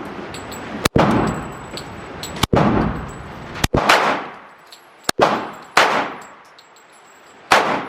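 Gunshots fired one at a time at uneven intervals, about seven in all, each sharp crack trailing off in an indoor range's echo.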